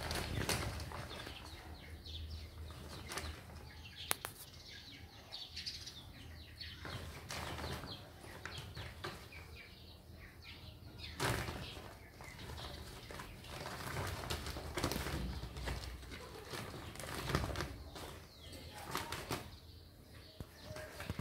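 Woven plastic sack rustling and crinkling on and off as two kittens paw at it, tug it and scramble under it, with a few sharp clicks.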